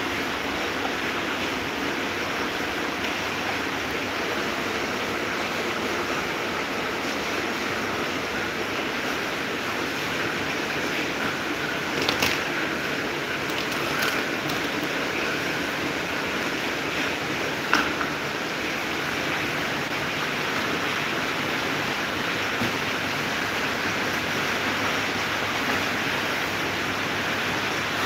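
Electric fans running: a steady rush of moving air and motor hum, with a few short clicks from handling the plastic fan blades partway through.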